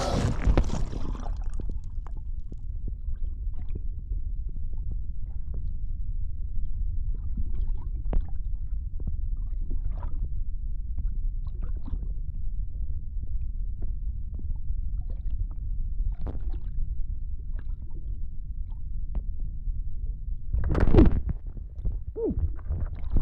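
A rush of water fading out over about a second, then underwater ambience: a steady, muffled low rumble with scattered small bubble pops, broken near the end by a louder burst of bubbling and churning water as the swimmer struggles.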